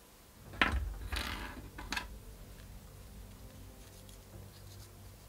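Small plastic clicks and rubbing from handling a 1/6-scale action figure's accessories while toy pistols are fitted into its holsters: a sharp click, a brief scrape, then another click about two seconds in.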